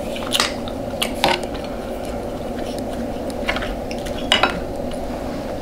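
Cutlery clinking against a plate while eating: several separate sharp clinks over a steady background hum.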